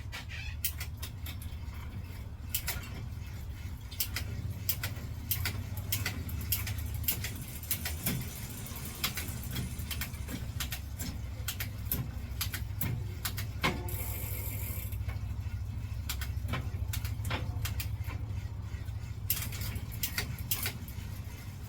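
Bicycle drivetrain cranked while shifting through the gears: the chain and rear derailleur clicking across the cassette cogs over the steady running of the spinning rear wheel and chain. A little rub from the disc brake rotor, a sign that the hydraulic caliper needs realigning.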